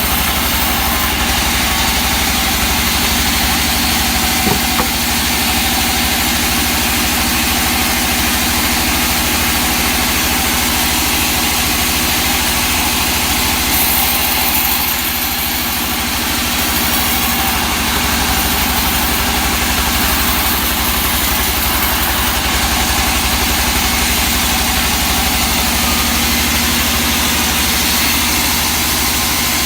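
Sawmill machinery running steadily, an engine-driven saw with a constant low hum under a wide hiss. A few high-pitched tones come and go in the middle.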